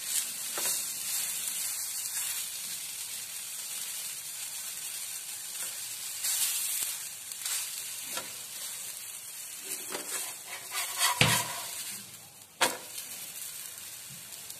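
Gram-flour (besan) tomato omelette sizzling in oil on a flat griddle pan, with a spatula scraping and pressing across it several times and a couple of sharper knocks near the end.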